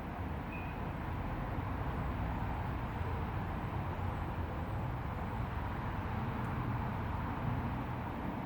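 Crumlin River flowing: a steady, even noise of running water.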